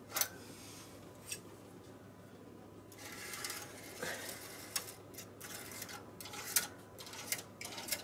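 Excess WD-40 being wiped off the metal needles of a knitting machine's needle bed with paper towel: soft rustling from about three seconds in, with scattered light metallic clicks and taps of the needles.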